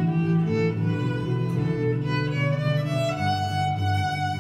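Electric violin playing slow, held notes, moving up to a higher held note about three seconds in, over a deeper accompaniment underneath.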